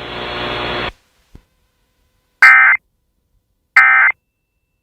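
A steady electronic buzz cuts off about a second in, followed by a faint click. Then come two short, identical bursts of Emergency Alert System data tones about 1.4 s apart: the EAS end-of-message (EOM) header that closes the severe thunderstorm warning.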